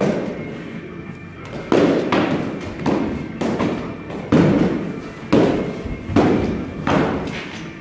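Padded sport swords striking in a fencing bout: a series of dull thuds, about one a second, each with a short echo, mixed with the fighters' steps on a wooden floor.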